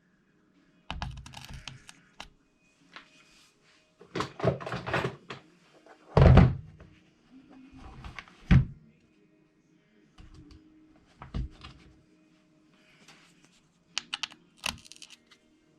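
Handling an RC truck and small tools on a bench while taking out the diff cover screws: scattered clicks, taps and knocks, with a louder thud about six seconds in and another a couple of seconds later.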